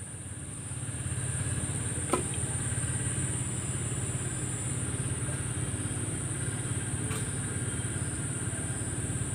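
A motor engine running steadily, a low hum that grows louder about a second in and then holds, with a constant high-pitched whine above it. A single sharp click comes about two seconds in.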